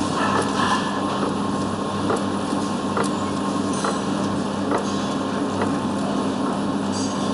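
Flexographic label printing press running: a steady mechanical hum with occasional light clicks.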